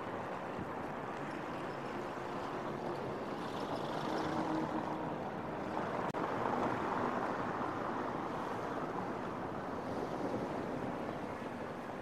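Steady outdoor city-street ambience: an even wash of traffic noise, a little louder in the middle.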